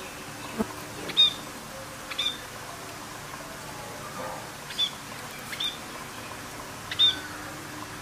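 Budgerigars chirping: about five short, high chirps spread over several seconds, with a soft knock just before the first one, over a steady hiss.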